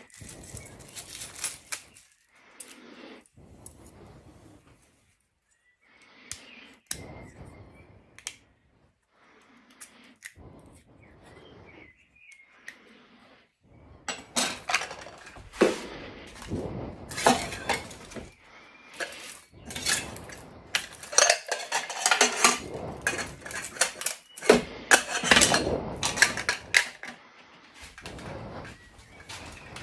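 Metal spork and nested camping cookware pots being handled: scattered clinks and knocks at first, then busier, louder clattering of pots and lids from about halfway on.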